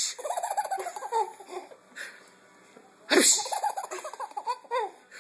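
A sharp, hissing cymbal-like crash, twice (at the start and again about three seconds in), each followed by a baby's bursts of giggling laughter.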